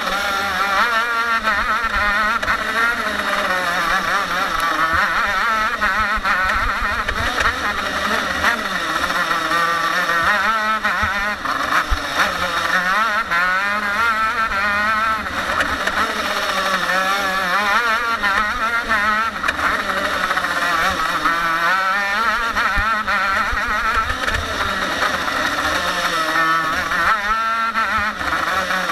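TM KZ10 125cc two-stroke single-cylinder shifter kart engine at racing speed, its pitch repeatedly climbing and dropping as it revs up on the straights and comes off the throttle for corners.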